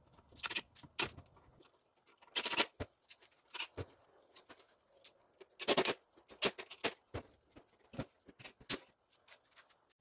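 Irregular clicks, knocks and rattles of hard parts being handled while a Kreg Foreman pocket-hole machine is set up. Two longer rattles stand out, about two and a half and six seconds in.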